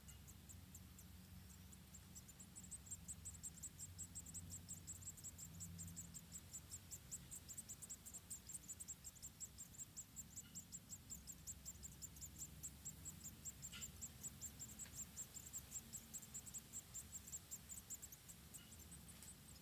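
An insect chirping in a fast, steady, high-pitched pulse of about four chirps a second, over a low background hum, with a faint click or two.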